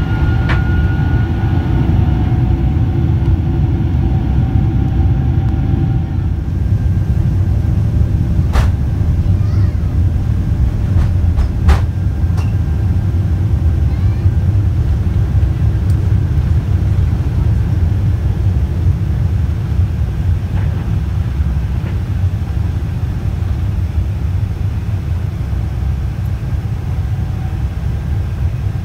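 Boeing 747-400's Rolls-Royce RB211 engines at takeoff power with the rumble of the takeoff roll, heard inside the cabin: a loud, steady low rumble with a high whine that stops about six seconds in. Two sharp knocks come a few seconds apart in the first half.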